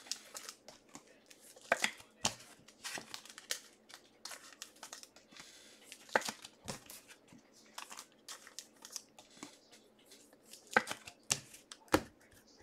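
Football trading card packs being torn open by hand and their foil wrappers crinkled as the cards are handled: an irregular run of sharp crackles and rustles, loudest about two seconds in and again near the end.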